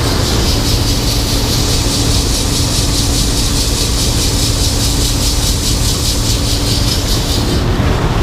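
Heavy farm machinery running: a steady engine rumble with a constant hum, and a fast, high mechanical rattle that stops shortly before the end.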